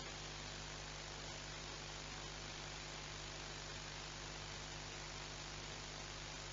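Steady hiss with a constant electrical hum underneath: the noise floor of the nest webcam's microphone, with no distinct sound from the falcon.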